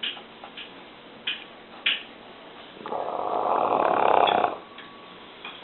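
A dog snoring in its sleep: one long snore about three seconds in that grows louder before it stops, with a few short clicks before it.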